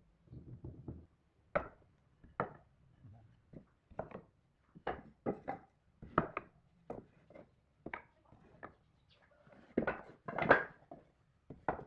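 Wooden boards and blocks being handled and set down on a wooden workbench: irregular wooden knocks and clatters, the loudest a cluster about ten seconds in.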